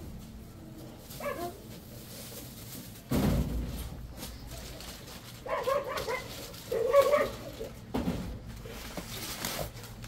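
A dog barking in short bursts, two quick groups of barks about halfway through, the second the loudest. A dull thump about three seconds in.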